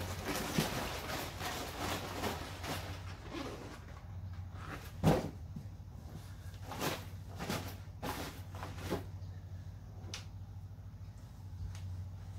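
Vinyl of a deflated inflatable rocking horse rustling and crinkling as it is pressed and handled, followed by a sharp thump about five seconds in and several softer knocks a few seconds later.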